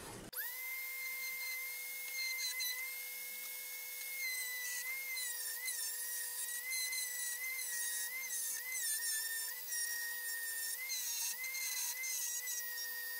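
Mini rotary tool spinning a wire wheel brush against the rusty steel blade of pruning shears to scrub off rust: a steady high-pitched motor whine. From about four seconds in the pitch wavers as the brush presses on the metal, with light scratching.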